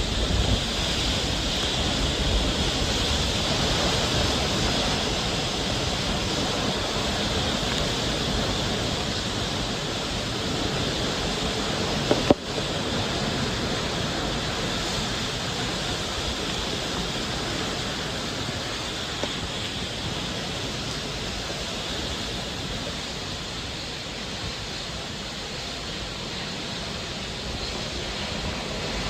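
Typhoon winds and driving rain making a loud, steady rush of noise, with wind buffeting the microphone low down. A single short knock comes about twelve seconds in.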